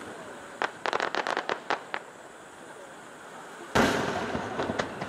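Aerial firework shells going off: a quick run of sharp pops and cracks about a second in, then a single deep boom of a shell burst near the end that trails off.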